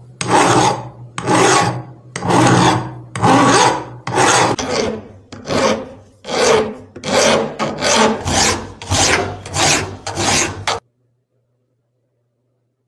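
A hand file or rasp worked in about a dozen even strokes, roughly one a second and slightly quicker later on. The strokes stop abruptly near the end.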